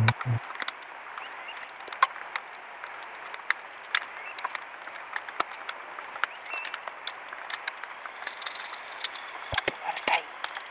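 Light rain falling on lake water: a steady hiss with many scattered sharp ticks of individual drops.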